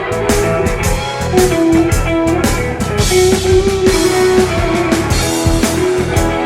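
Rock band playing an instrumental break: a guitar carrying a melodic line over bass and a steady drum-kit beat.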